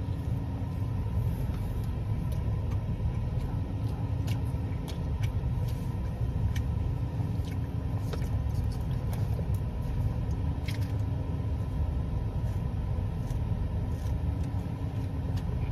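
Steady low engine rumble of an idling car heard from inside the cabin, with faint scattered clicks and rustles of food being handled.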